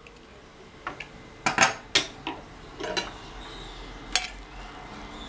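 A metal ladle and lid clinking against an aluminium pressure cooker as it is opened and the cooked pongal inside is stirred: about five short separate clinks.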